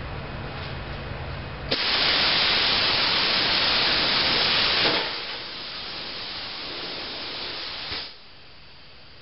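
Hand-held plasma cutter cutting a hole in a metal plate: a loud, even hiss of the cutting arc starts about two seconds in and stops about three seconds later. A quieter hiss follows and cuts off near the end, with a quieter hiss and low hum before the cut.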